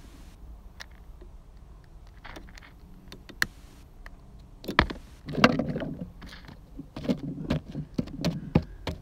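Scattered sharp clicks and rubbing close to the phone's microphone as it is handled against clothing, getting busier and louder about halfway through.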